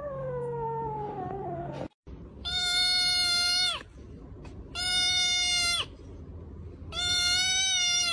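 A cat's drawn-out meow falling in pitch. About two seconds in it cuts off, and a tabby cat gives three long, loud, steady meows, each about a second long with short pauses between.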